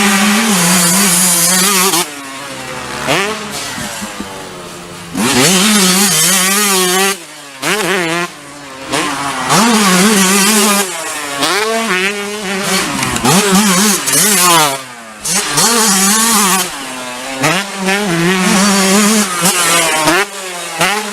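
Two-stroke motocross motorcycle engine revving in repeated loud bursts, the pitch climbing and falling as the throttle is opened and shut, with quieter dips between the bursts.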